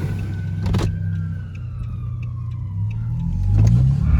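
Car engine revving as the car tries to pull out of snow, rising in pitch and loudest near the end, with a high tone slowly falling in pitch over the first few seconds.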